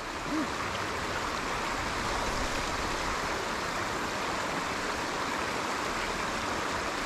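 Steady rushing of running water, an even hiss.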